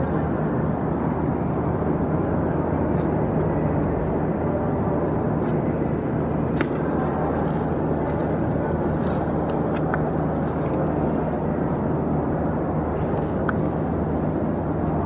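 Steady low rumble and hum of a large train-station hall's background noise, with a few faint clicks.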